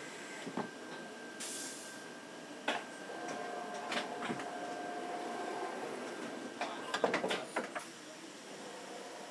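Banknote sheet-handling machinery running, with scattered mechanical clicks and knocks. There is a short hiss about a second and a half in, a steady tone through the middle, and a brief run of clattering around seven seconds in.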